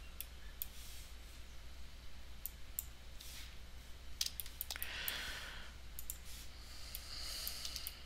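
Computer mouse clicking now and then, sharp single clicks, with a soft breath about five seconds in and another near the end.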